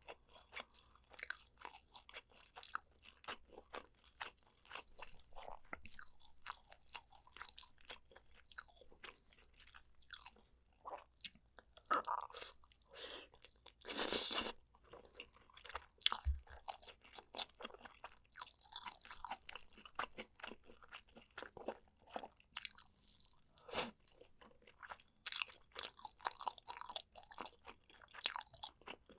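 Eating sounds of spicy soy-braised pork back ribs: chewing and biting, with many short wet clicks and smacks of the mouth and a louder burst about halfway through.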